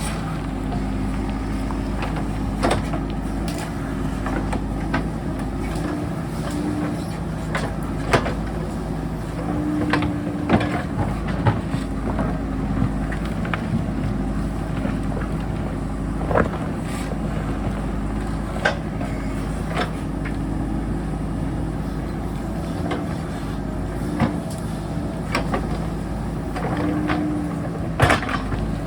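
JCB backhoe loader's diesel engine running under work, its pitch rising and falling a little, with sharp knocks and clanks scattered throughout as the bucket works rock, the loudest near the end.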